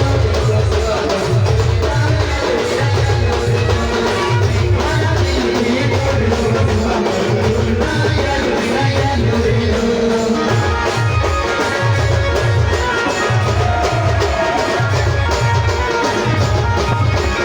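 Timli dance music played by a band: a steady beat of deep bass drum hits, each dropping in pitch, under a busy melody line.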